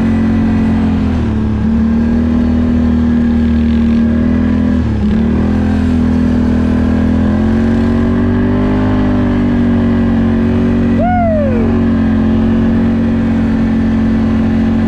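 ATV engine running under way at a steady pace over a snowy road. The engine note dips briefly about one second in and again about five seconds in, then climbs a little. A short, high, falling squeal comes about eleven seconds in.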